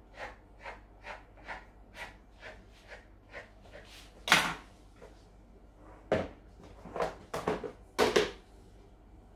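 A knife cuts slits into puff pastry on a plastic tray: a quick even run of short cuts, about two a second. After that come several louder knocks and clunks as plastic containers and a mixing bowl are handled and set down on the counter.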